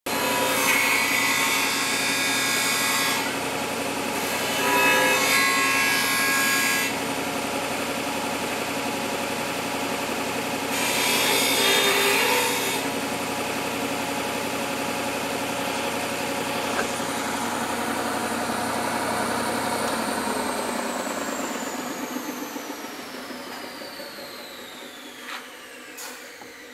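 Stationary belt sander running, with a steel knife blade ground against the belt in three passes: about 0–3 s, 4–7 s and 11–13 s. About twenty seconds in the sander is switched off, and its whine falls steadily in pitch as it spins down.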